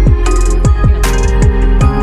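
Background music with a steady electronic beat: deep kick drums that drop in pitch, sharp percussion hits and held instrument notes.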